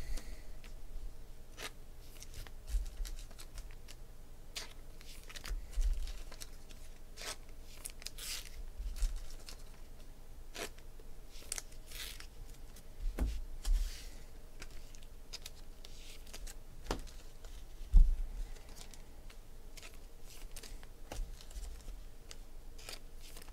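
Trading-card packaging being torn open and handled: irregular tearing and crinkling rustles with sharp clicks, and a few soft thuds on the table, the loudest about 18 seconds in.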